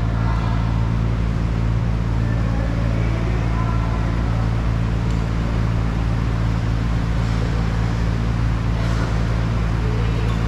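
A steady low mechanical hum, with a few faint taps.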